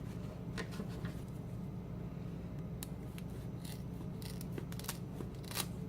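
Short, crisp scratching and crackling of a dried loofah sponge's stiff fibres being handled and rubbed, several irregular scrapes over a steady low hum.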